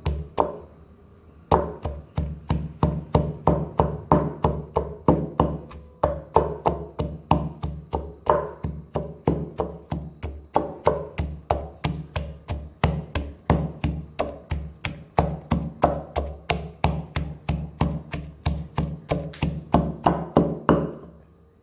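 Wooden pestle pounding in a wooden mortar, crushing coarse salt, dried chilies and garlic: a steady run of dull knocks, about three to four a second, starting after a short pause about a second and a half in and stopping just before the end.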